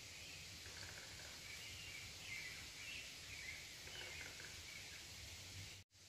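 Faint outdoor ambience with small birds chirping now and then in the distance. The sound cuts off suddenly near the end.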